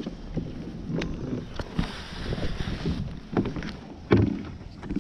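Irregular knocks and bumps in a canoe as people move about and handle the catch, with a brief hiss about two seconds in and a heavier thump about four seconds in.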